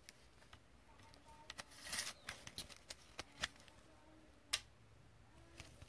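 Faint handling noise of trading cards in a hard plastic card holder: scattered light clicks and scrapes, busiest in the middle, with one sharper click about four and a half seconds in.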